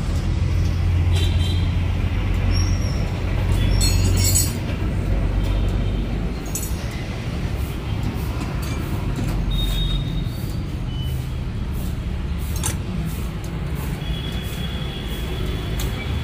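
Steady low rumble of motor vehicle engines, heavier in the first few seconds, with a few light clicks scattered through it.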